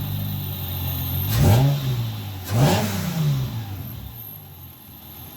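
A Hyundai Tiburon's 2.7 V6 running just after a start, blipped twice, with the revs rising and falling about a second and a half in and again near three seconds, then settling back to idle. It is being checked for the misfire caused by water in the spark-plug boots, which have just been dried and greased.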